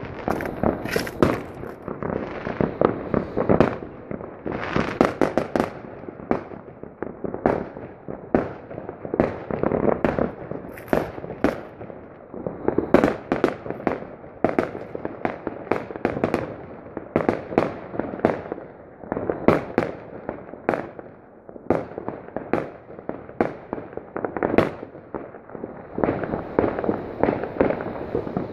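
Fireworks and firecrackers going off in a dense, irregular barrage of bangs and cracks, some much louder than others, over a constant rumble of more distant explosions.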